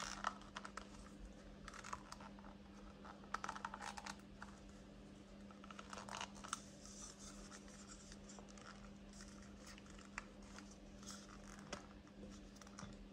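Faint scratching and small clicks of plastic action-figure parts being handled and pressed together, coming in short scattered bursts.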